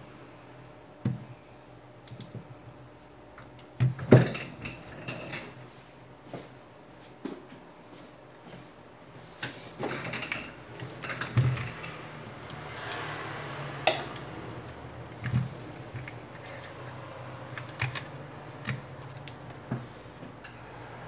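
Scattered clicks, taps and rustles of hands handling small repair tools and a smartphone on a silicone repair mat, over a faint low steady hum. The sharpest click comes about four seconds in.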